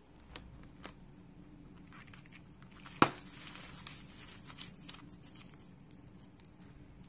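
A clear film bubble filled with glitter bursts with one sharp pop about three seconds in, after a few faint clicks as it is squeezed. Crinkling and rustling follow as the burst film is rubbed and crumpled between the fingertips.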